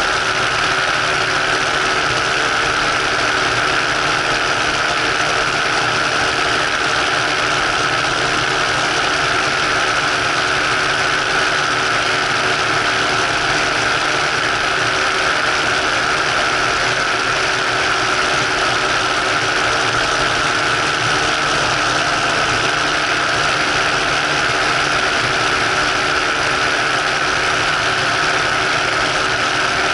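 Ultralight trike's engine and propeller running steadily in level flight, with no change in pitch or level.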